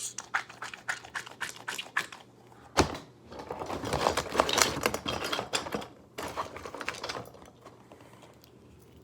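Small hard plastic fidget toys being handled: a rapid run of clicks, one loud knock about three seconds in, then a few seconds of dense clattering and rattling that dies away after about seven seconds.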